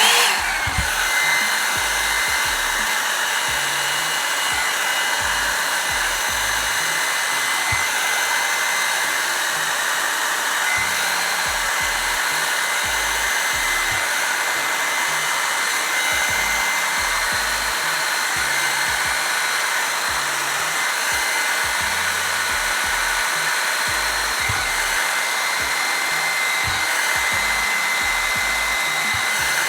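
Revlon One-Step hot-air brush switched on and blowing steadily, a constant rush of air with a high motor whine, used to dry a section of hair.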